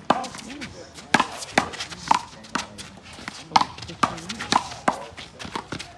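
A one-wall handball rally: a string of sharp smacks as the small rubber ball is slapped by hand and strikes the wall and court, coming irregularly at about two a second.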